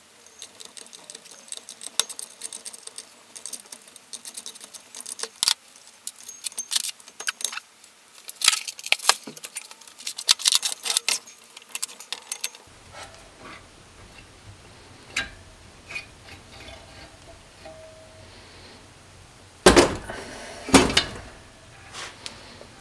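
Loose metal engine parts and hand tools clinking and clattering on a disassembled BMW M54B30 cylinder head: many light, sharp metal clicks for the first half, then two louder knocks about three seconds before the end.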